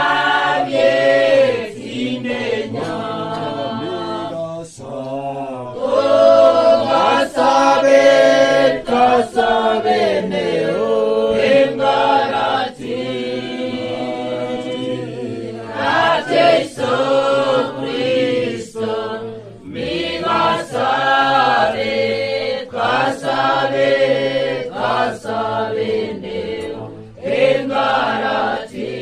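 Gospel vocal music: a group of voices singing in phrases, with short breaks between lines, over a steady low accompaniment.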